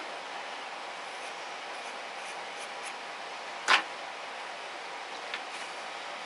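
Steady background hiss with a faint hum, and one short, sharp handling noise a little over halfway through, with a smaller tick near the end, as fabric strips are picked up and laid on the quilt block on the cutting mat.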